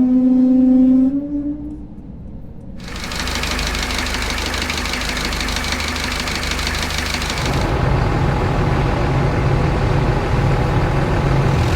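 A steady horn-like tone that rises slightly and fades out about a second and a half in. About three seconds in, a vehicle engine starts running steadily with a wash of hiss. Near the middle it changes abruptly to a deeper engine drone.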